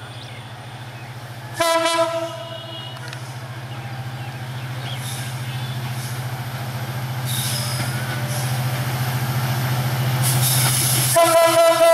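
EMD diesel-electric locomotive approaching, its engine drone growing steadily louder. Its horn sounds about a second and a half in for a short loud blast followed by a fainter one, then sounds again loudly near the end.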